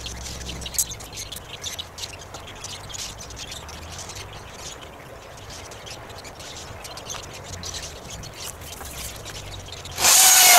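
Small birds chirping in quick short notes throughout, then near the end a cordless drill-driver runs briefly, under a second, the loudest sound, as it drives into the wooden coop frame.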